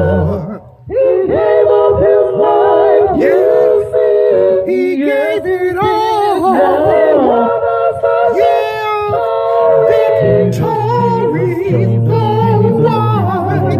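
A cappella gospel singing by one man multi-tracked into layered harmony parts, with a lead line moving over sustained backing voices. The sound dips briefly about a second in, and a low bass part comes in near the end.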